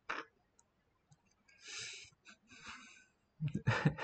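Soft breathy exhales from a person close to the microphone, twice, then a voice starts speaking near the end.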